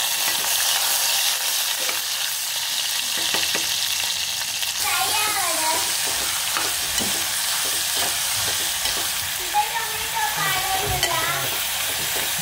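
Sliced onions and curry leaves sizzling in hot oil in an aluminium pressure cooker as they are fried, with a metal spoon stirring and scraping against the pot. A warbling, pitch-bending sound rises above the sizzle twice, about five and ten seconds in.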